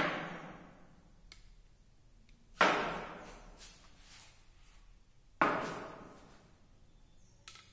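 Small glass beakers knocked down on a wooden table, three sharp knocks about two and a half seconds apart. Each one echoes away in the room.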